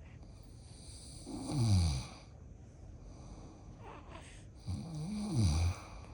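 A man snoring loudly: two long snores about three seconds apart, each sliding down in pitch.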